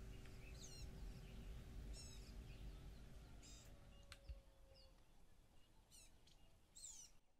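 Near silence: faint room tone with a few faint high chirps of birds, a low hum that fades out about halfway, and a soft knock about four seconds in.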